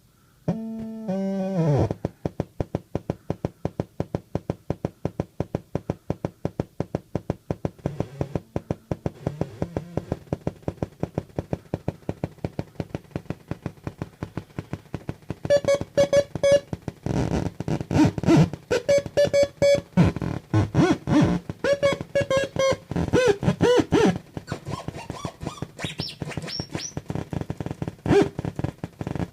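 Homemade CMOS 40106 square-wave oscillator noise synth playing: a few stepped electronic tones falling in pitch, then a fast, even pulse of clicks, then from about halfway a busy tangle of buzzing tones, bleeps and short pitch glides as the oscillators interact.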